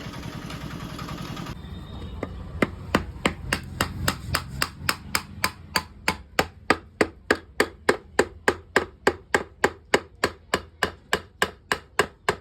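Motorcycle engine running for about a second and a half, then a long run of sharp, regular hammer strikes that quicken to about four a second, as on the engine during its teardown.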